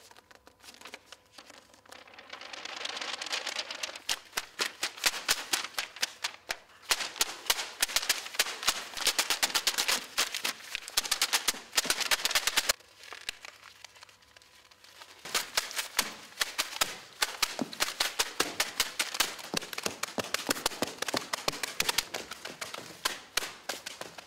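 Sheets of paper being crumpled and crinkled in the hands, a dense crackling that builds over the first few seconds and stops abruptly about halfway. After a short lull, a sparser run of sharp clicks and taps.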